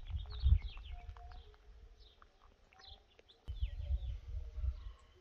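Birds chirping and calling, many short falling chirps throughout. A low, gusty rumble comes in two spells, at the start and again from about three and a half seconds in, and is the loudest sound.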